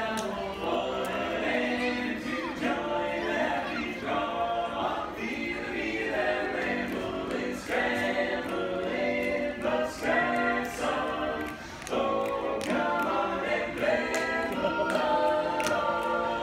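A barbershop quartet singing a cappella in close harmony.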